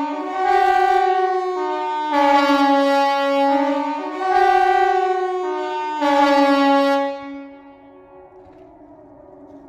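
KTG-10 civil-defence siren sounding a two-tone signal: a lower and a higher pitch alternate about every two seconds. About seven seconds in it cuts off and winds down to a faint fading tone.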